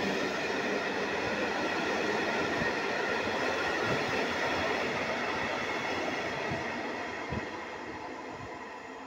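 Locomotive-hauled passenger coaches rolling past, a steady rumble of wheels on rail with irregular low knocks. The sound fades steadily over the last few seconds as the train draws away.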